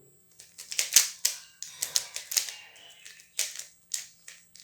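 Rubik's cube being scrambled by hand: quick, irregular clicking and clacking of the plastic layers turning, several turns a second.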